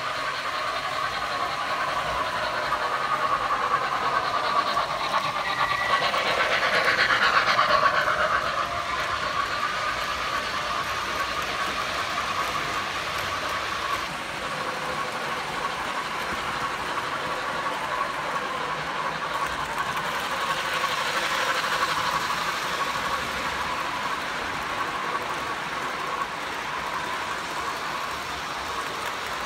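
A MTH RailKing O-gauge Southern streamlined Hudson model steam locomotive and its freight cars running around a three-rail layout: a steady whining hum with wheel and track noise. It swells to its loudest about seven to eight seconds in, with a falling pitch as the train passes close, and swells more gently again later.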